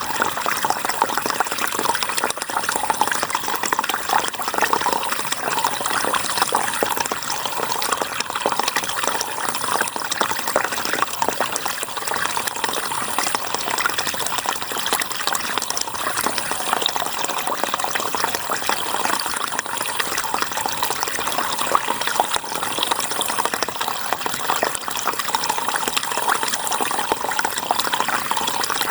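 River water flowing steadily, an even, unbroken rushing.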